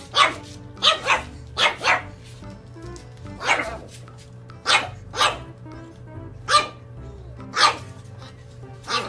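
Pug puppy barking about ten times in short barks, some in quick pairs, each falling in pitch.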